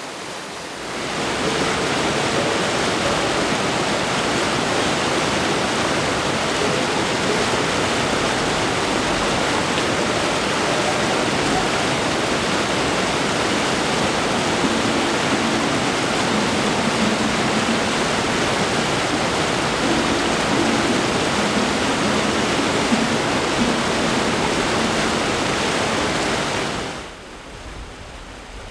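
Brook water rushing over a small waterfall or cascade: a loud, steady rush that swells in about a second in and cuts off shortly before the end.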